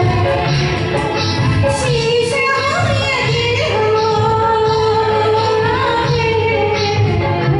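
A woman singing into a handheld microphone, holding long notes, over a karaoke-style backing track with a steady beat.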